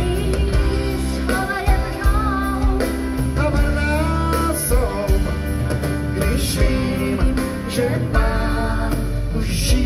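Live big band music with a steady bass and drum beat and cymbal strikes, and a wavering melody line over the top.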